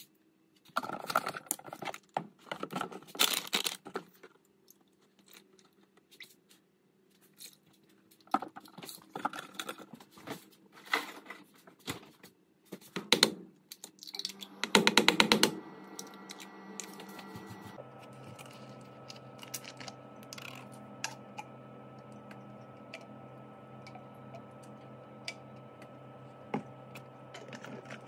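Kitchen handling sounds as pancake batter is mixed from a boxed mix: scattered clicks, taps and scrapes of utensils and containers, with one louder second of fast rattling about halfway. A steady electric hum runs through the second half.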